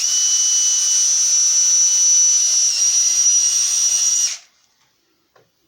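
Electric drill running with a steady high whine as it bores a bolt hole through cured plaster-gauze mold backing; it stops about four seconds in.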